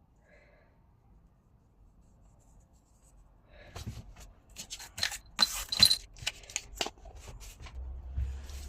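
Pieces of scrap glass clinking and scraping as they are handled: a quick run of sharp clinks starting about three and a half seconds in, with a low hum joining near the end.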